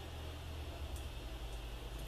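Steady low hum and faint hiss, with one light click about a second in as small transmission parts are handled by hand.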